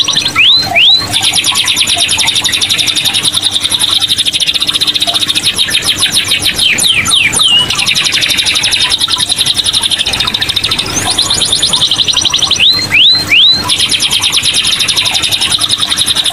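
Caged domestic canary singing a long, unbroken song of fast trills. A few quick rising whistles come near the start and again about three-quarters of the way through, with falling glides around the middle.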